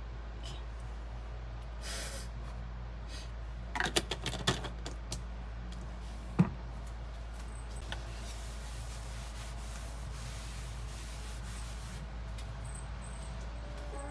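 Light handling sounds with a glass bottle: a quick cluster of clicks, then one sharp knock about six seconds in as it is set down on the wooden board. This is followed by a cloth rubbing across the counter, all over a steady low hum.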